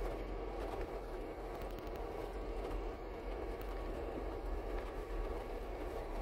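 Steady low drone of a 4x4's engine and drivetrain crawling slowly over a rocky trail, heard from inside the cab, with faint clicks and rattles throughout.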